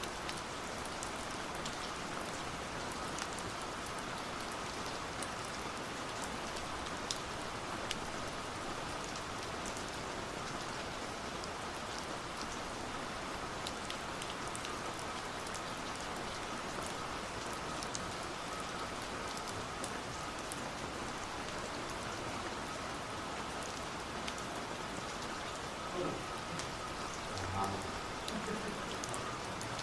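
Steady rain pattering: a constant hiss dotted with many small drop ticks.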